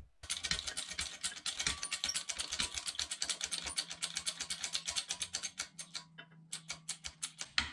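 Rapid, even clicking from the hydraulic jack of a 12-ton shop press being pumped to bring the ram down onto the universal joint cap. The clicking stops briefly about six seconds in, then starts again.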